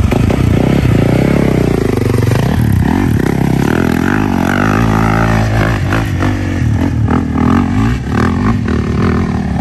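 Dirt bike engine revving hard as the bike pulls away and climbs a steep dirt hill, its pitch rising and falling with the throttle.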